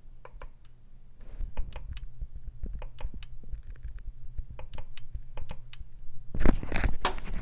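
Sharp, irregular clicks from a fuel injector being fired one pulse at a time by an injector pulse tester, over a steady low hum. This is the cylinder 3 injector of a Ford Ranger's 2.5 L four-cylinder, the one suspected of causing the misfire and nearly dead. A louder, denser noise comes in near the end.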